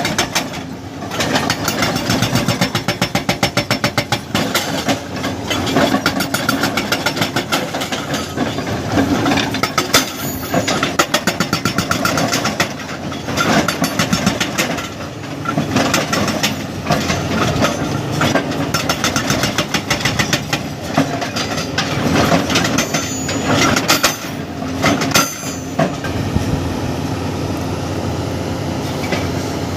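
Hydraulic breaker on a Kobelco SK520 excavator hammering in bursts of rapid, even blows, with short pauses between bursts and the excavator's diesel engine running underneath. The hammering stops a few seconds before the end, leaving the engine running.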